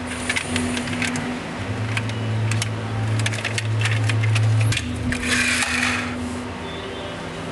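Small plastic toy truck clicking and rattling as it is handled and turned over in the hands, with a short hiss about two-thirds of the way through.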